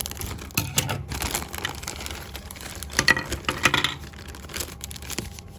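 Cardboard and plastic packaging being handled, opened and torn: irregular crinkling, rustling and clicks, busiest about half a second in and again around three seconds in, then quieter near the end.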